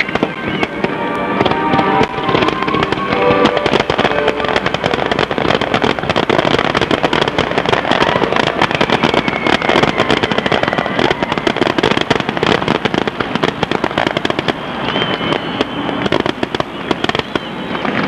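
Fireworks display going off: dense, rapid crackling and popping of bursting shells, loud throughout.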